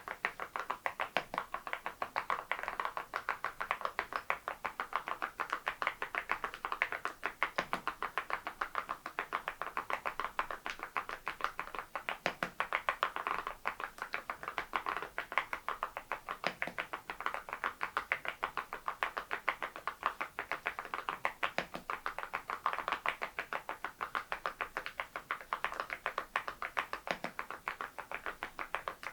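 Fast, continuous typing on the Adelie mechanical keyboard fitted with ceramic keycaps: a steady stream of bright, clacky keystrokes with a deeper stroke every few seconds.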